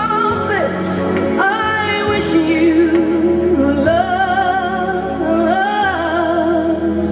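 Slow song playing for the routine, a woman singing long held notes with vibrato over a soft sustained accompaniment.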